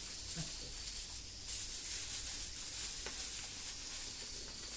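Firewood fire burning with foil-wrapped chicken roasting on the embers: a steady hiss and sizzle, with a faint crackle or two.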